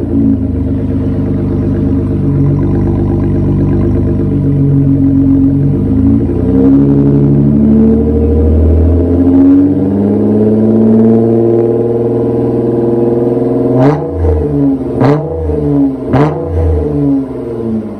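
2013 Dodge Avenger's 3.6-litre Pentastar V6 heard at the tailpipe through a 10-inch Black Widow muffler with the rear muffler deleted. It idles with a deep, almost V8-like burble, is raised about six seconds in to a steady 2000 rpm, then is revved sharply three times near the end.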